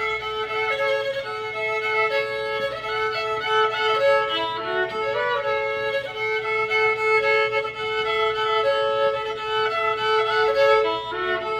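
Solo fiddle playing an instrumental break of an old-time tune: a melody of short notes over a steady drone note held throughout.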